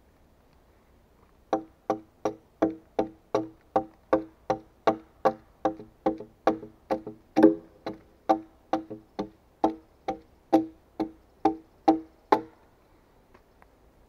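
Steady hammering on a peeled log: about thirty even blows, roughly three a second, each with a short wooden ring. It starts about a second and a half in and stops near the end.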